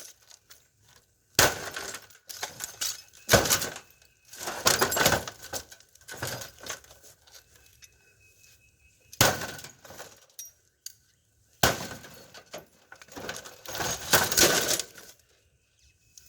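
Sledgehammer blows on a plasma TV, about four sharp strikes spread out with pauses. Each is followed by breaking and the clatter of broken glass and plastic pieces.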